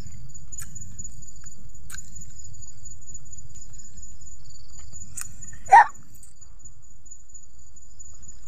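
Crickets trilling steadily at a high pitch over a low rumble on the microphone, with a few faint clicks and one brief, loud squeak about six seconds in.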